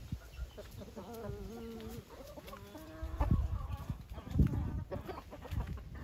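Aseel chickens calling, with one drawn-out call held in flat steps of pitch from about one to three seconds in. Low thuds follow near the middle, the loudest a little past four seconds.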